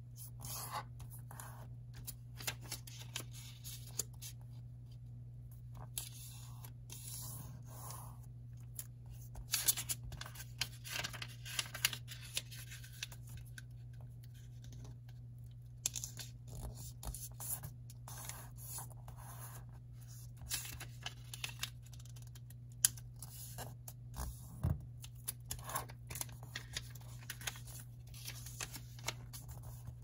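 Square origami paper being folded and its creases pressed flat with the fingers: irregular rustling, sliding and scraping of paper, with a low steady hum underneath.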